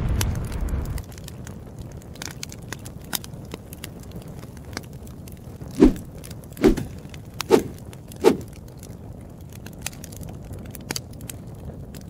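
Intro sound effects: a deep boom dies away in the first second, then fire crackling with scattered small snaps, and about halfway through four short loud hits in quick succession, under a second apart.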